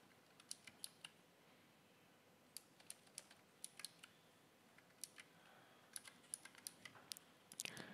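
Faint typing on a computer keyboard: scattered keystrokes in short, irregular runs with pauses between them.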